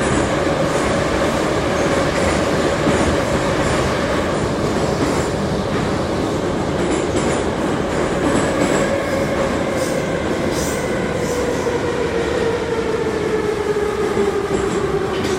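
Type 81-717/714 metro train running, heard from inside the car: a steady rumble of wheels on rail under a traction-motor whine. The whine drops in pitch over the last few seconds as the train slows.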